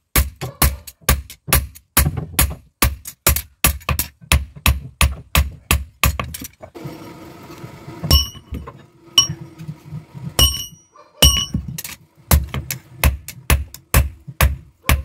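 Hand hammer forging a red-hot steel knife blade on an anvil: a fast run of hammer blows about three a second, a short break with soft noise around the middle, then a few single strikes that ring with a clear metallic tone, and another fast run of blows near the end.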